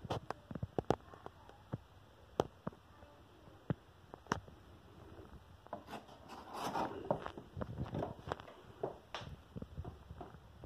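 Handling noise from a cardboard packaging box being gripped and moved by hand: scattered clicks and short rustles, with a longer scraping rustle about six to seven seconds in.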